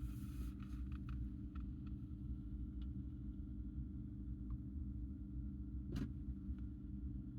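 Steady low hum with scattered faint clicks, a short hiss at the start and one sharper click about six seconds in.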